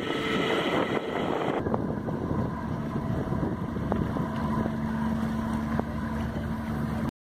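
Engine of a small river ferry running steadily as it pulls away across the water, with wind on the microphone; the sound cuts off suddenly near the end.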